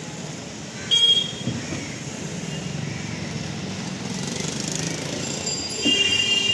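A car door shuts with a sharp thud about a second in, then a steady low engine rumble. Short high-pitched toots sound with the door shutting and again near the end.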